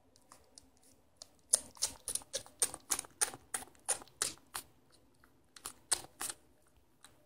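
Shiba Inu puppy suckling at its mother's teat: a run of wet smacking clicks, about three a second, a short pause, then a few more near the end.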